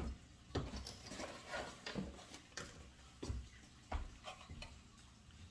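Irregular light knocks and clicks, about eight in five seconds, of small hard objects being picked up and handled.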